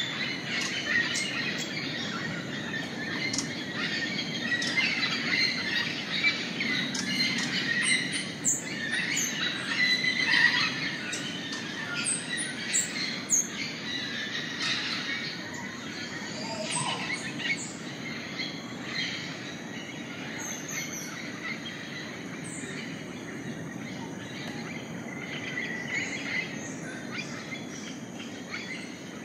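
Rainforest dawn chorus: many birds chirping and calling at once, short overlapping calls and quick sweeps, over a steady background hum. The calling is busiest in the first half and thins out after about sixteen seconds.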